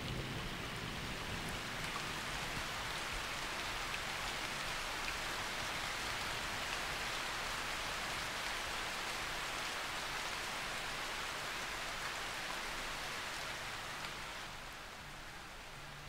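Steady monsoon rain falling on open marsh water: a dense, even hiss of drops that eases slightly near the end.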